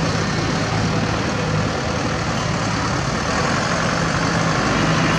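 Diesel engines of loaded tipper dump trucks running, a steady low drone with no change in pace.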